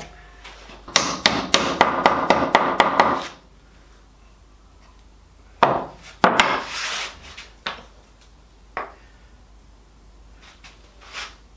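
Hammer tapping thin walnut splines into the saw kerfs across the corners of a wooden box held in a vise. A quick run of about ten sharp knocks, then a couple of harder blows and a few single taps.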